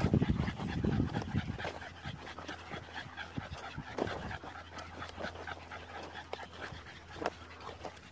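Dog panting steadily, over the crunch of footsteps on a dirt track; a louder low rumble at the start dies away within about a second.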